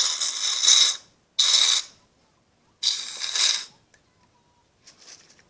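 Aerosol can of shaving cream spraying into a bowl in three hissing spurts, the first the longest, separated by short pauses.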